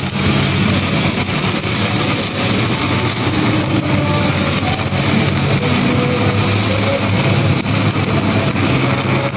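Stick-welding arc of a Pipeliner 8010G cellulosic rod crackling and hissing steadily in a downhill pass deliberately run wrong, over a steady low engine drone.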